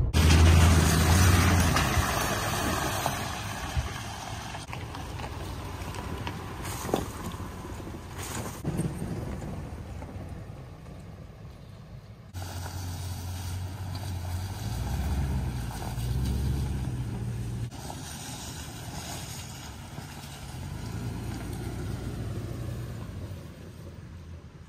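Vehicles driving on a dirt road. First comes engine and road noise inside a Toyota Tundra's cab. After a sudden cut about halfway through, the Tundra and a Toyota 4Runner are heard from outside, their engines running as they drive along.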